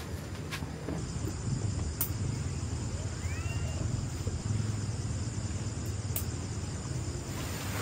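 Outdoor ambience: a steady low rumble with a high, even insect buzz. A few sharp clicks and a short chirp about three seconds in break over it.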